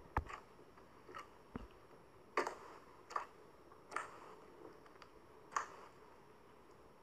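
Clear slime with glitter mixed into it being worked and squeezed: a string of short, irregular squishes and pops, roughly one every second, with a few sharp clicks near the start.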